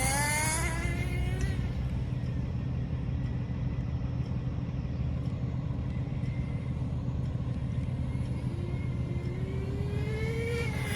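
Team Associated NTC3 nitro RC car's glow engine running: the revs fall in the first second, it runs on at a steady low pitch, then the pitch climbs over the last few seconds as the car speeds up again.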